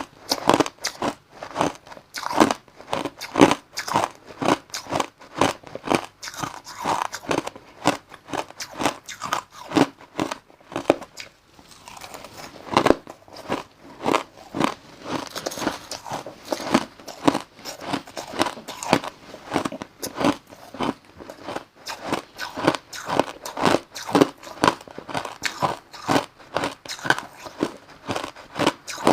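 Crushed ice being bitten and chewed close to the microphone: rapid, irregular crunches, several a second, with a brief pause about halfway through.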